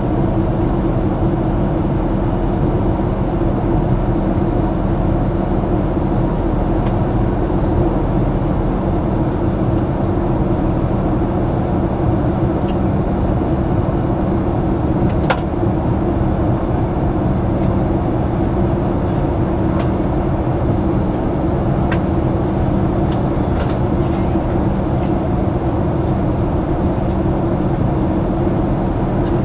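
Cabin noise of a Boeing 737-800 in flight: the steady drone of its CFM56-7B turbofan engines and rushing airflow, with a constant low hum. A few faint ticks come in the second half.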